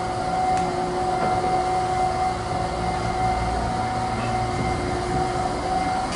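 Old freight elevator car travelling in its shaft, its geared traction machine running with a steady hum and whine over a low rumble.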